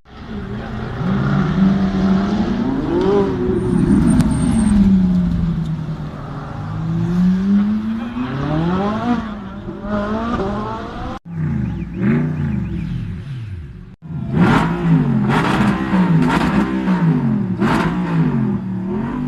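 High-performance car engines revving hard, the pitch climbing and falling with each press of the throttle. After two sudden cuts, a run of quick revs comes about once a second near the end.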